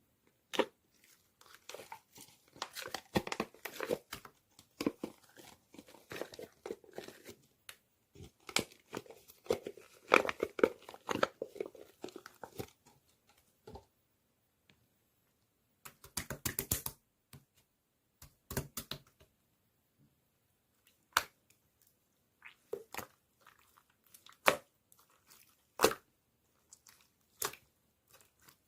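Slime being handled: squished, stretched and poked by hand, giving dense crackling and popping clicks, then a pause, a short burst of rapid pops, and scattered single sharp pops near the end.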